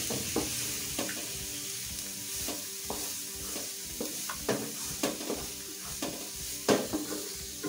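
Chopped onions sizzling in hot oil in a frying pan while a wooden spatula stirs them, with irregular scrapes and knocks of the spatula against the pan; one knock near the end is louder than the rest.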